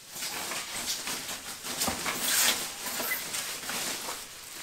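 Thin plastic packaging bag rustling and crinkling as it is pulled off and gathered up by hand, loudest about two seconds in.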